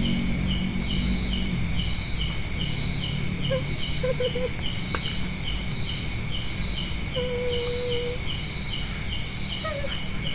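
Night crickets and other insects: a dense chorus of steady high trilling with one chirp repeating two to three times a second, over a low rumble.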